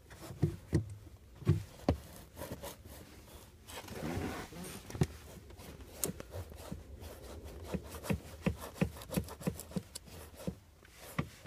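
Handling noise in a car footwell: irregular knocks and taps with rubbing between them, a rustling scrape about four seconds in, and a quicker run of taps in the last few seconds.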